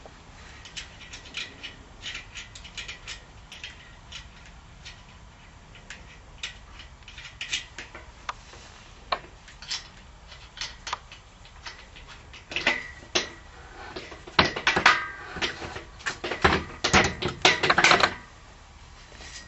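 Metal clicks and knocks of hands working a clamp on a steel mounting rail while fitting a solar panel's frame. Scattered at first, they come thicker and louder in the last several seconds.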